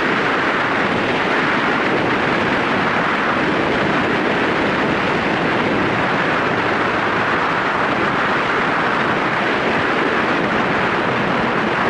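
Steady rush of wind and road noise from riding a Yamaha SRX4 motorcycle at a constant speed, with no change in pace.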